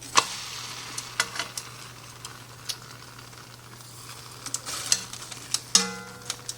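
Homemade flour tortilla cooking on a very hot skillet: a faint sizzle with a scatter of sharp clicks and taps against the pan, and a short ring near the end.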